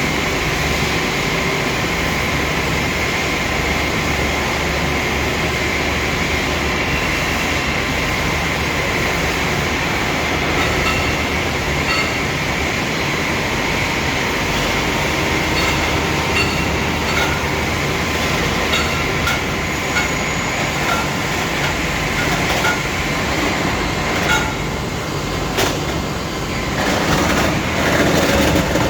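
Continuous mechanical running noise with a steady hum and whine. From about a third of the way in come irregular light ticks, and near the end a few louder clacks and rattles.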